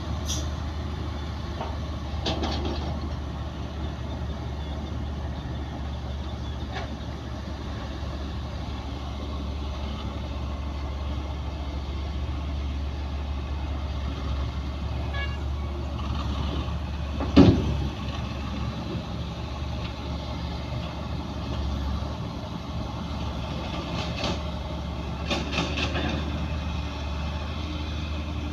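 Heavy diesel earthmoving machinery running steadily with a low engine drone. Occasional short metallic knocks and clanks come over it, the loudest a sharp bang about 17 seconds in.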